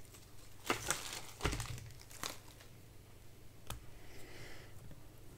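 Clear plastic packaging bag crinkling in the hands in a few short rustles as a small cable is taken out of it, with a single sharp click about two thirds of the way through.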